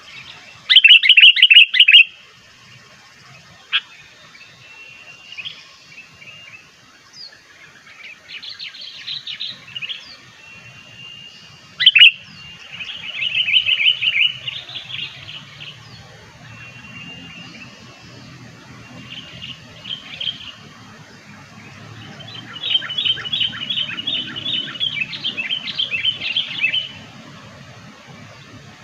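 Sooty-headed bulbul (kutilang) calls used as a lure: bursts of fast chattering notes with short whistled phrases between them. The loudest bursts come about a second in and about halfway through, and a long chatter comes near the end.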